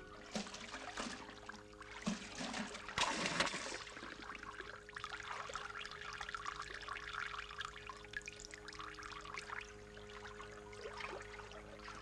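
Water running and trickling, with a faint steady hum underneath; the splashing is louder for a moment about three seconds in.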